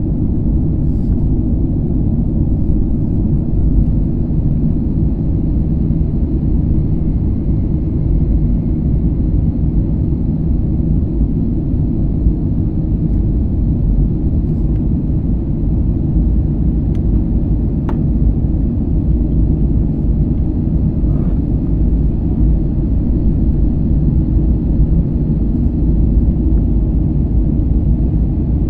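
Steady low rumble of an Airbus airliner's jet engines and rushing air, heard from inside the passenger cabin as the plane climbs after take-off.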